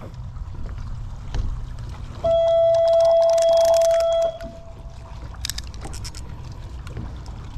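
A horn sounds once, a single steady tone held for about two seconds that stops abruptly and echoes away, over a steady low background rumble.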